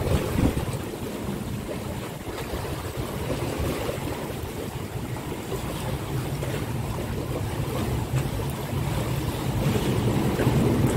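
Gale-force typhoon wind buffeting the microphone in gusts, over choppy harbour water sloshing against a stone seawall. The gusts grow louder near the end.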